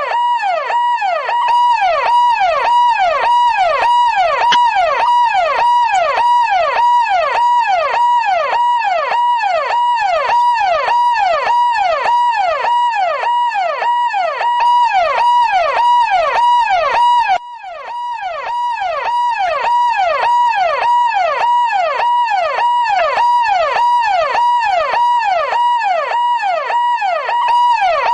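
Electronic police siren in a fast yelp, its pitch sweeping rapidly up and down over and over. About 17 seconds in it briefly drops in loudness, then swells back.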